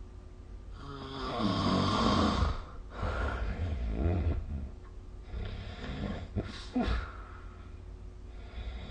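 A sleeping person snoring, picked up by a phone's microphone. There are three snores about two seconds apart, the first, about a second in, the loudest. Two short sharp catches come in the breath near the two-thirds mark.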